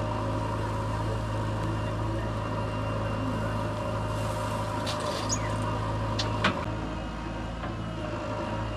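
JCB earthmoving machine's diesel engine running at a steady pace, with a single sharp click about six and a half seconds in.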